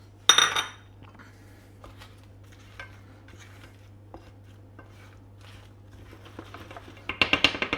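Kitchen utensils knocking against cookware and dishes while food is served: one loud ringing clank at the start, a few light clicks, then a quick run of clinks near the end.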